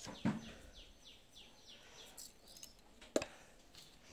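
A bird calling a quick run of short falling notes, about five a second, for a second and a half. Two sharp knocks come near the start and about three seconds in.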